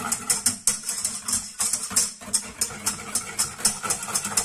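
Wire whisk beating a thickening milk, cornstarch and dulce de leche mixture in a metal pot, quick rhythmic scraping strokes about four a second, over a steady low hum.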